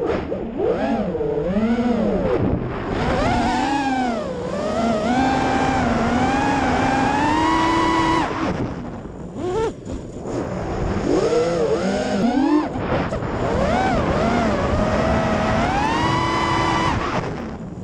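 FPV racing quadcopter's brushless motors and propellers whining, the pitch rising and falling as the throttle is worked through freestyle moves. The whine drops away and comes back twice briefly around the middle, where the throttle is cut and punched again, and falls off near the end.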